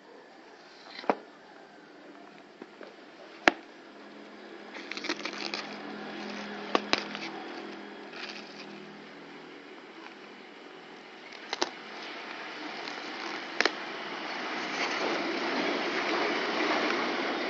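Handling of a shrink-wrapped cardboard fireworks box: a few sharp taps and clicks, with small crinkles about five to nine seconds in. A rushing background noise grows louder over the last few seconds.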